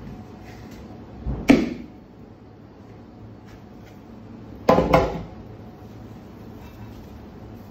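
Stainless steel hotel pan and salt crust knocking against a kitchen worktable: a loud knock about a second and a half in, then a double knock with a brief ring near five seconds.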